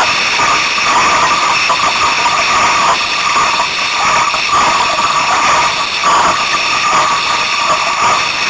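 Strong wind blowing across the microphone together with water rushing along a small sailboat's hull: a loud, steady rushing noise.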